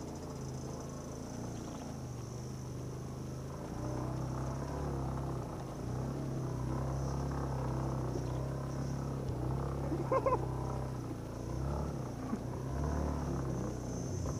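Yamaha YBR250's single-cylinder four-stroke engine pulling at low revs up a steep dirt climb with two people aboard, getting louder about four seconds in as the throttle opens.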